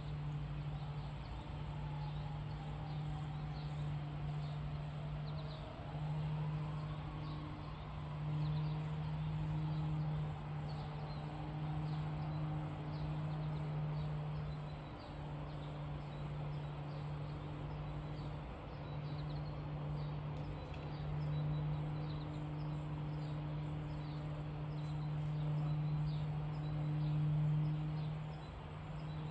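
Outdoor ambience: a steady low hum that drops out briefly now and then, with faint high chirps scattered throughout.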